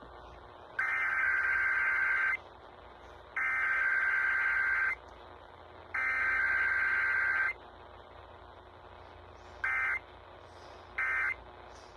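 Emergency Alert System SAME data tones: three screeching digital header bursts of about a second and a half each, a second apart. Then, near the end, three short end-of-message bursts.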